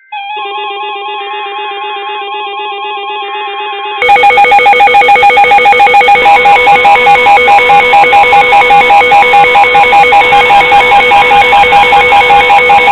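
NOAA weather radio receivers sounding their alert alarms for an incoming tornado warning. A warbling electronic tone plays under three bursts of high two-tone SAME header data, and about four seconds in a much louder, rapidly pulsing beep joins in.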